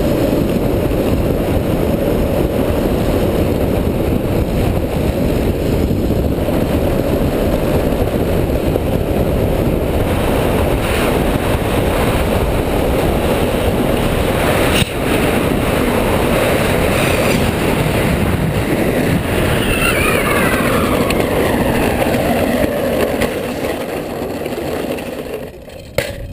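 Street luge wheels rolling fast over cracked asphalt, a loud steady rumble heard from the rider's helmet. There is a sharp knock about halfway through and a falling whine later on. The rumble fades near the end as the luge slows to a stop.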